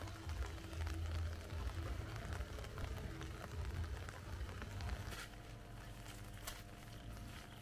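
Outdoor ambience: wind rumbling on the microphone over a crackling rustle of vegetation. About five seconds in it turns quieter and steadier, with a few sharp clicks.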